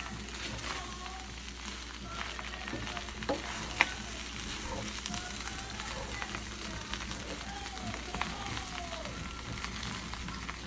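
Fried rice with beef and shrimp sizzling steadily in a hot pan, with scattered light clicks and one sharper tap about four seconds in.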